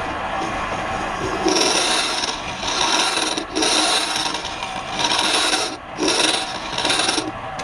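Rasping, abrasive scraping on wood: after a steadier rubbing noise, about six rough strokes, each under a second long.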